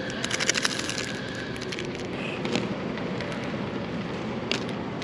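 Crinkling and crackling of a small packet wrapper being handled and opened: a quick flurry of sharp crackles in the first second, then a few single crackles later, over a steady background hum.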